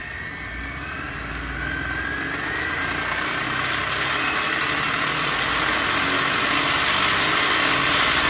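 Kyosho Mini-Z RC car's electric motor and drivetrain spinning its wheels on 3D-printed plastic dyno rollers: a whine that rises in pitch over the first few seconds and grows louder as the throttle is opened to almost full, then holds steady.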